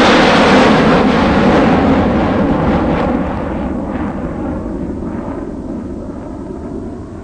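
A large formation of military helicopters flying low overhead, the rotor and engine noise loud at first and fading steadily as the nearest ones pass.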